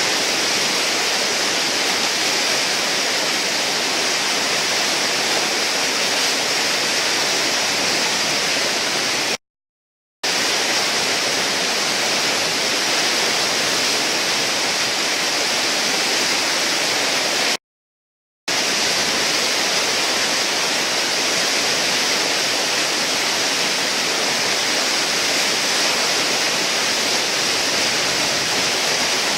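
Steady rush of whitewater churning through a river hole, broken twice by short drops to dead silence, about ten and eighteen seconds in.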